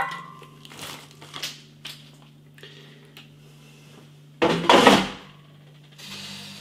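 Frozen fries being dropped into a metal air fryer basket, a ringing clink and then a few light clicks. About four and a half seconds in there is a loud slide and clunk as the basket drawer is pushed shut, and near the end the air fryer's fan starts running with a steady hiss.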